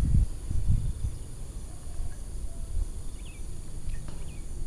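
Wind rumbling on the microphone over a steady, high-pitched insect drone, with a few faint short chirps in the middle.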